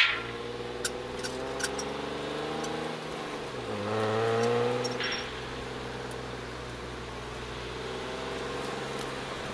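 A BMW E36 325is straight-six engine, heard from inside the cabin, pulling away under light throttle. Its note rises slowly, breaks off briefly about three seconds in at a gear change, and rises again more strongly before settling to a steady low-speed cruise. A few faint clicks come in the first two seconds.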